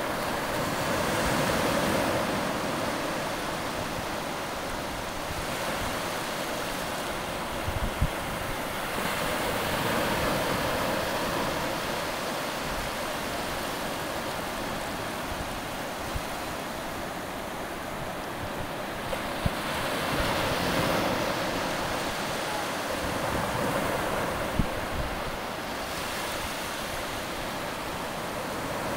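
Shallow surf washing up over sand and draining back, a steady hiss that swells and ebbs every few seconds, with a few brief thumps along the way.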